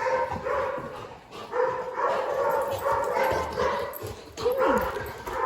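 A dog barking and whining in a run of repeated pitched calls, a few of them sliding down in pitch near the end.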